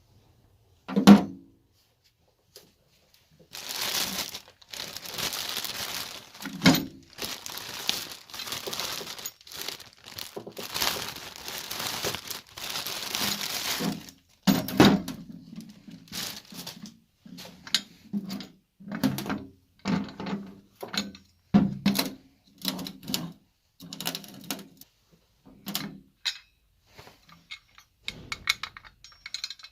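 Hands working on a winch being taken apart. First a single knock, then a long stretch of rustling and scraping, then a run of irregular knocks and clunks from parts and tools being handled and set down.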